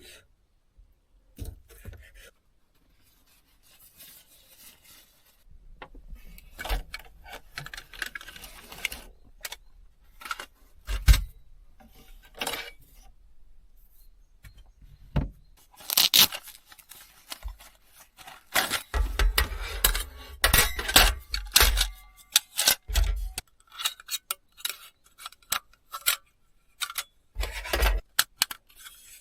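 Dishes and utensils being handled: irregular clinks, knocks and clatters, sparse at first and busier in the second half, with some duller thumps in the middle of that stretch.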